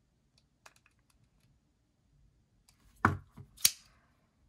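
Orion Knives Solaris folding knife being handled while its blade is checked for play: a couple of faint clicks, then about three seconds in a loud short knock followed by a sharp click.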